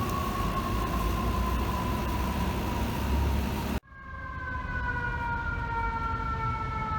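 Fire truck siren winding down in a slow falling wail over a low engine rumble. An abrupt cut about four seconds in leads straight into a second siren, also falling slowly.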